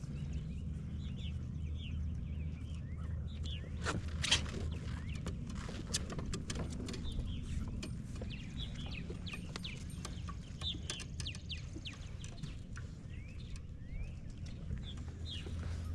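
Small birds chirping repeatedly in short, quick calls, over a steady low rumble, with scattered sharp clicks and knocks; the loudest click comes about four seconds in.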